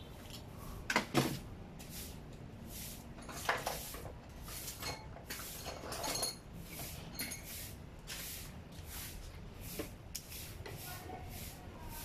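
Metal parts and tools being handled during e-bike front fork and headset work: a few sharp metallic clinks and knocks, the loudest about a second in, more around three and a half and six seconds in. Through the later part there is a faint, regular scraping about twice a second.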